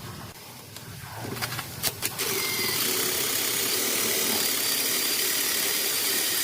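A few clicks, then about two seconds in a workshop power tool switches on and runs with a loud, steady hiss.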